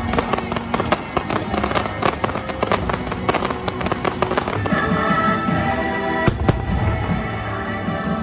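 Fireworks launching and popping in rapid succession over music playing for the show. About five seconds in the pops thin out and the music comes forward, with one loud bang a little later.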